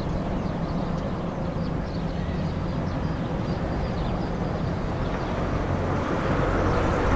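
Town ambience: a steady wash of street noise with a low rumble, growing a little louder near the end.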